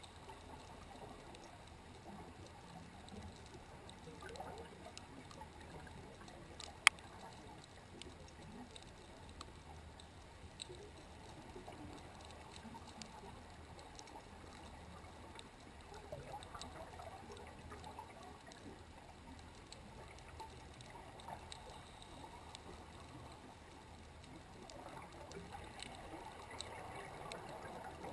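Faint underwater ambient sound picked up by a stationary bottom-mounted camera: a low, steady wash of water noise with scattered small clicks, and one sharp, loud click about seven seconds in.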